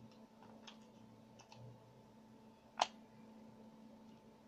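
Small plastic clicks from a Kemei KM-680A grooming kit's handle and attachments being handled: a few faint clicks, then one louder sharp click about three seconds in.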